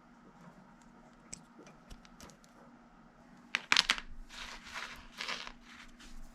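Handling noises while working inside a furnace cabinet: a few light clicks, then a loud clatter of sharp clicks past the middle and two crinkling, scraping rustles, over a faint steady hum.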